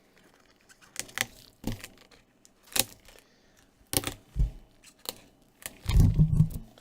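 Irregular sharp clicks and taps from handling the tablet parts and the replacement glass screen on a workbench, about eight in all, with a louder low thud about six seconds in.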